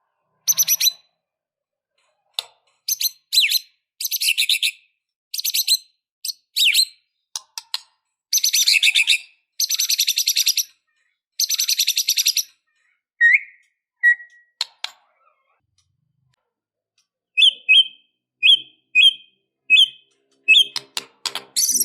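White-rumped shama singing in separate bursts of rapid, high trilled phrases, then, after a short lull, a run of short two-part chirped notes repeated about once or twice a second.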